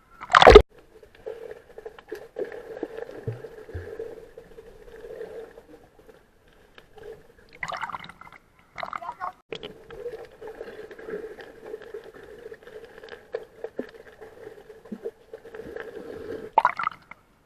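Muffled water gurgling and sloshing heard through an action camera's waterproof case in the sea. A sharp knock or splash comes just after the start, with short louder swishes about eight and nine seconds in and again near the end.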